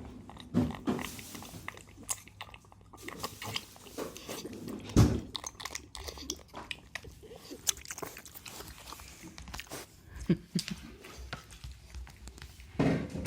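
Micro pig chewing and crunching, with irregular crackly clicks. A few low thumps of wind on the microphone come through about half a second, five, ten and thirteen seconds in.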